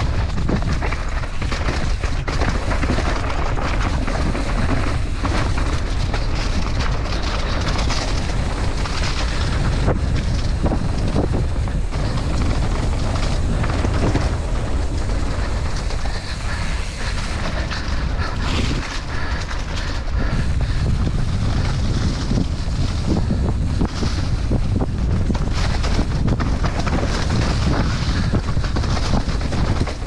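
Mountain bike descending a dirt trail at speed: heavy wind buffeting on the microphone over the rumble of knobby tyres on dirt and leaves, with frequent short knocks and rattles as the bike hits bumps.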